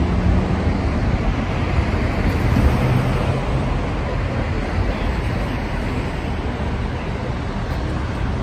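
Steady city street traffic noise: passing vehicles.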